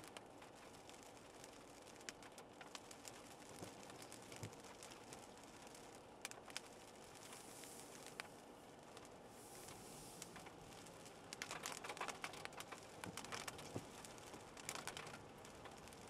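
Faint patter and ticking of raindrops on the car, heard from inside the cabin over a low steady road hum. There are two busier spells of drops in the last third.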